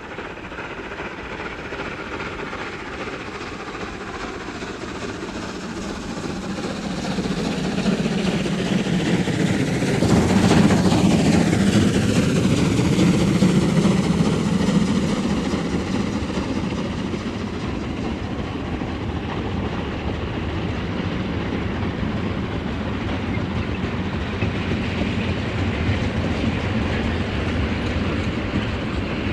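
German 2-10-0 freight steam locomotive hauling a heavy goods train past at about 39 km/h. It grows louder to a peak about ten seconds in, with a falling pitch as it goes by, then the train's wagons roll on over the rails.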